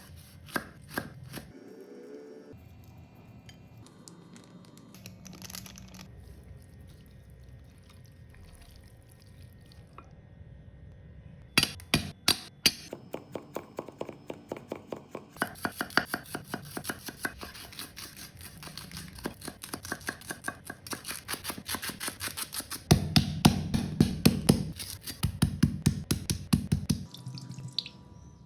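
Background music with a steady beat, entering about a third of the way in and gaining a heavier bass near the end; before it, only faint scattered clicks.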